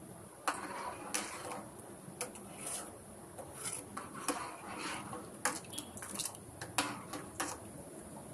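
A spoon stirring in a cooking pot, knocking and scraping against the pan with about a dozen light, irregular taps.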